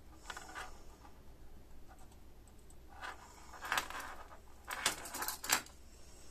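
Small clicks and clatter of a circuit board and loose electronic parts being handled on a hard workbench: a light rustle near the start, then a run of sharp clicks about three to five and a half seconds in.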